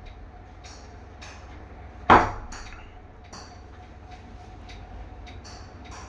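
A parakeet's beak pecking and clinking against a steel food bowl as it eats, with light scattered ticks and one sharp, loud clink about two seconds in.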